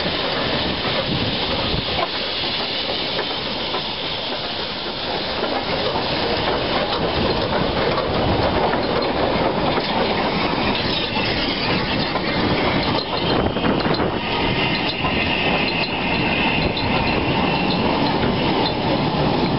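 Three narrow-gauge NGG16 Garratt steam locomotives hauling a passenger train slowly past: steam hissing and the clatter of the locomotives' running gear, then the coaches' wheels clicking over the rail joints as they roll by. The sound grows a little louder partway through.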